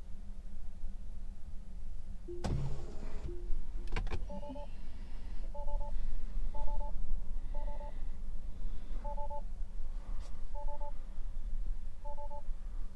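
A series of short two-note electronic beeps, like phone dialing tones, repeating roughly once a second, over a steady low hum. A couple of clicks come just before the beeps start.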